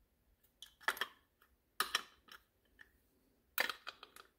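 Plastic GM large-cap HEI distributor cap clicking and clacking against the distributor as it is fitted and seated. The clicks come in three short clusters of sharp clicks, with quiet between.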